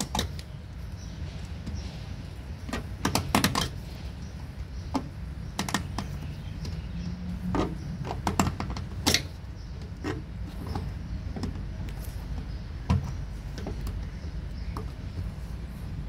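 Scattered clicks, knocks and scrapes as the wire lock ring on a front-load washer's door gasket is worked into the gasket groove with hands and a screwdriver, metal tapping on the plastic front panel, with a steady low hum underneath.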